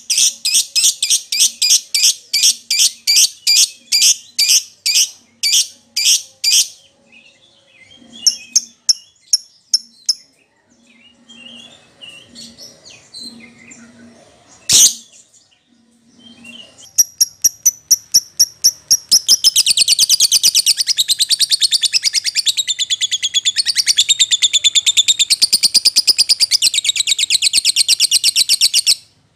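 Agitated fighter lovebird singing: a run of sharp high chirps, about three a second, then scattered chirps and a single sharp click midway. From about twenty seconds in, its chirps speed up into a long, fast, unbroken trill that cuts off suddenly near the end.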